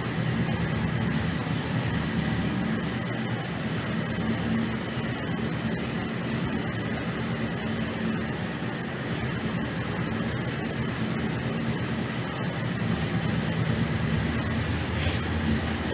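A 1972 Dodge Dart's naturally aspirated V8 idling steadily with an even, low rumble.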